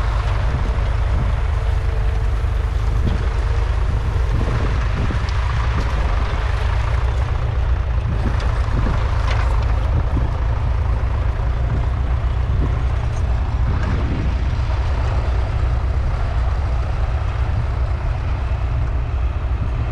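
Massey Ferguson 35 tractor's three-cylinder diesel engine running steadily with a low rumble.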